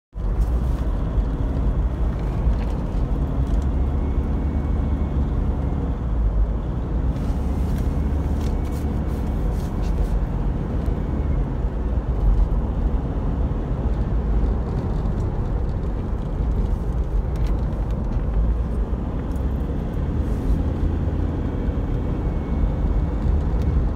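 Steady low rumble of a car's engine and tyres on the road, heard from inside the cabin while driving, with a faint rattle or click now and then.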